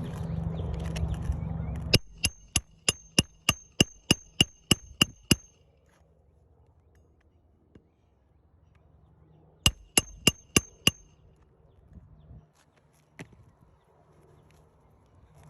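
A hammer driving roofing nails into asphalt shingles: a quick run of about a dozen sharp, ringing blows at about three a second, then after a pause a second run of five. A steady low noise fills the first two seconds before the hammering starts.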